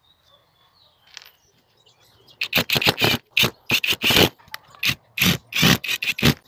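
Hand screwdriver driving a screw through the metal base plate of a dowel-cutting tool into a wooden workbench. It makes a quick, uneven series of scraping strokes, about three a second, that starts about two and a half seconds in.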